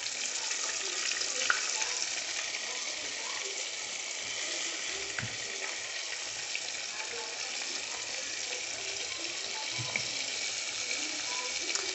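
Flour-dredged tilapia fillets frying in a pot of hot oil: a steady sizzle with fine crackling.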